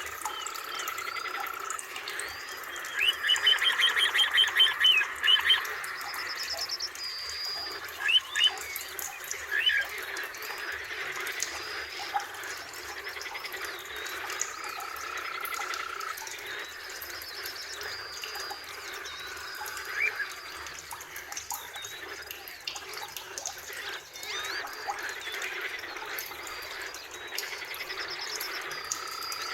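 Forest birds calling over a steady background chorus: a loud rapid trill from about three to six seconds in, scattered short chirps, and a slow rising whistle heard near the start, again about halfway through, and at the end.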